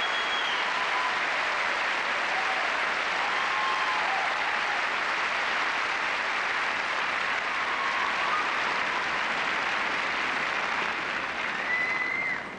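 Large arena audience applauding steadily, dying away near the end.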